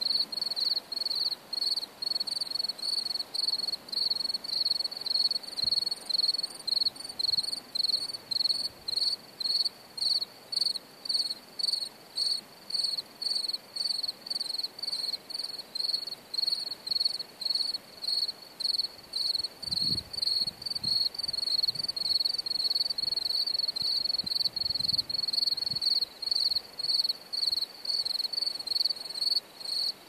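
A cricket chirping steadily in a meadow, a high pure note repeated a few times a second without a break.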